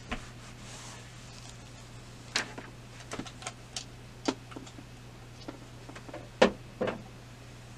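Scattered light knocks and clicks of small objects being handled and set down on a worktable, about a dozen in all, the loudest a pair of knocks near the end, over a low steady hum.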